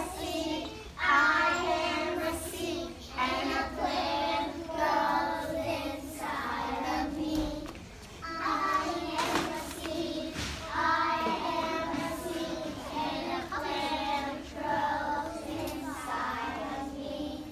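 Young children's voices singing a song in short sung phrases with brief pauses between them.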